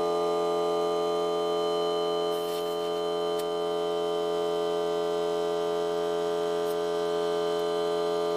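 Ryobi P739 18-volt cordless air compressor running steadily with a constant hum while it inflates a car tire through its hose. A brief hiss comes about two and a half seconds in.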